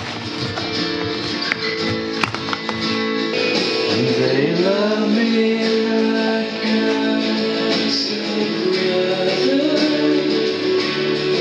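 Background music: a guitar-led song with a sung voice.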